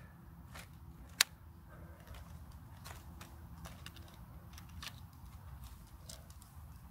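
Shock-corded alloy poles of a folding camp-chair frame snapping into their plastic hub joints: a scattered series of sharp clicks, the loudest about a second in, over a steady low rumble.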